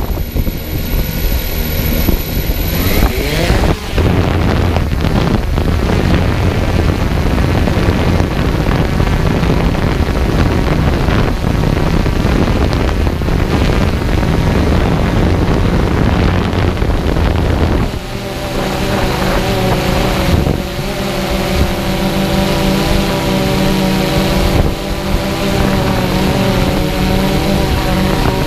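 Thunder Tiger Ghost+ quadcopter's electric motors and 12-inch propellers spinning up for takeoff about three seconds in, then running steadily in flight with wind noise on the microphone. Past halfway a whine of several steady tones stands out clearly.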